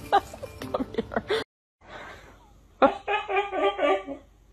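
A person laughing in quick, pulsing bursts for about a second and a half, beginning about midway through: the owner's laugh that the husky then imitates. Before it, a brief cut to silence ends the previous clip's sounds.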